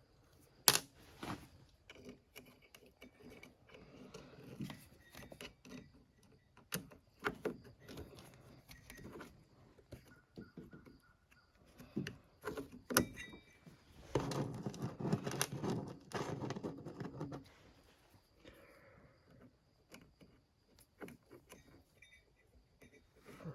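Small metal parts clicking and clinking as a snowmobile carburetor's top and throttle linkage are fitted by hand, in scattered taps, with a louder stretch of rattling and rubbing about fourteen seconds in that lasts a few seconds.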